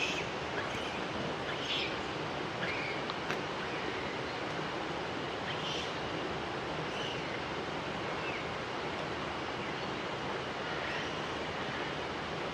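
Steady rushing outdoor background noise, with faint short high chirps or calls scattered through it, roughly every second or two.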